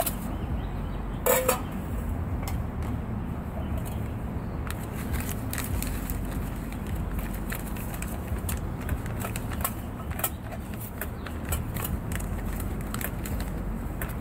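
Crinkling and crackling of a foil ration pouch of instant white rice being handled in a steel canteen cup, with one louder knock about a second in, over a steady low background rumble.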